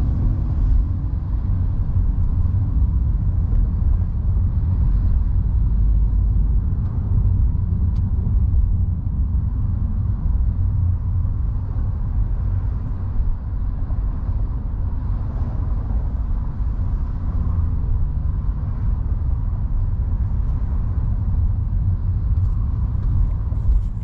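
A car cruising at freeway speed: a steady low rumble of road, tyre and engine noise.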